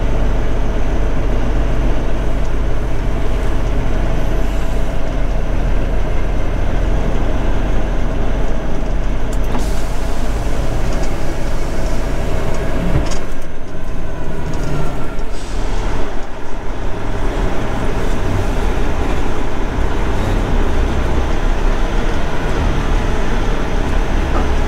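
Semi-truck diesel engine running, heard from inside the cab as the tractor-trailer moves slowly. The engine's low rumble eases off for a few seconds about halfway through, then picks up again.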